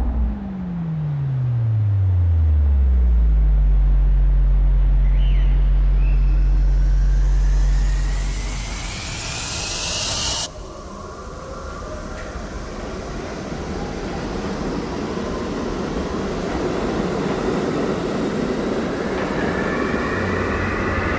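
Cinematic sound-design effects. A deep bass tone slides downward and settles into a sustained sub-bass drone. A rising whoosh then cuts off abruptly about ten seconds in, and a rumbling noise slowly builds after it.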